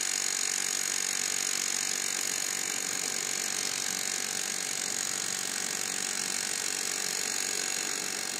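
Cordless Milwaukee SDS Max rotary hammer driving a 5/8-inch ground rod into the ground: a steady, rapid mechanical hammering. The rod is deep in hard dirt and goes in only slowly.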